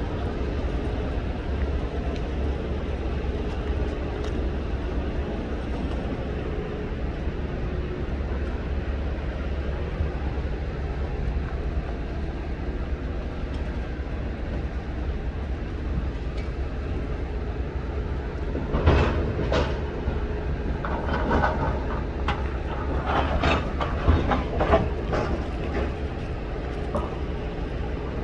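Steady low rumble of wind and sea at a rocky shore. About two-thirds of the way through comes a run of sharp knocks and clatters, hard objects striking among the rocks.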